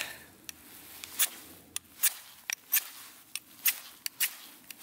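Ferrocerium rod scraped in quick strokes along the edge of a Lixada folding steel stick stove, which is used as the striker in place of a knife spine: an uneven series of short, sharp scrapes, about a dozen.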